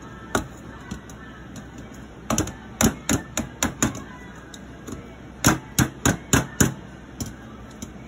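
Hard knocks and taps of metal kitchenware against a blender jar as steamed vegetables are emptied into it: one knock shortly in, then a run of about six, then another run of about five quick strikes.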